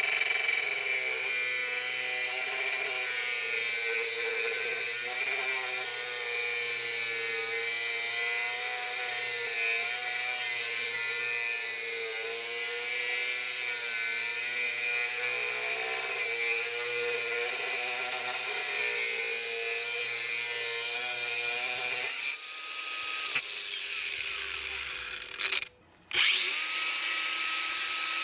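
Bosch GWS 180-Li cordless angle grinder running under load, its whine wavering in pitch as the disc works the material. About 22 seconds in the load eases, there is a brief break near 26 seconds, and then it spins freely with a steady whine.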